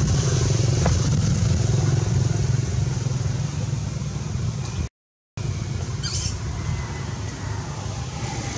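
A steady low rumble, like an engine running nearby. It cuts out to silence for a moment about five seconds in, and a short high chirp follows about a second later.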